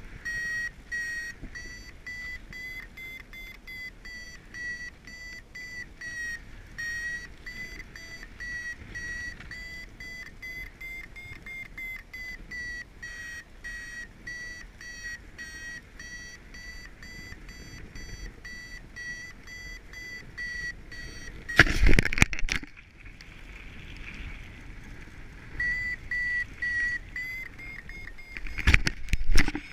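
Paraglider variometer beeping rapidly, its pitch drifting up and down, the climb signal while circling in a thermal. Loud gusts of wind buffet the microphone about 22 seconds in and again near the end, and the beeping pauses for a few seconds after the first gust.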